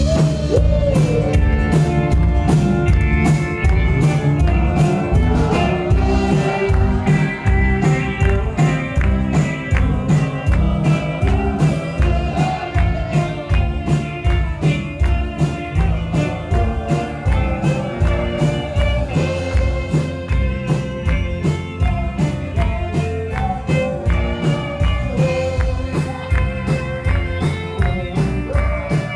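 Rock band music with a steady drum beat, bass and guitar, and a sliding lead melody over it.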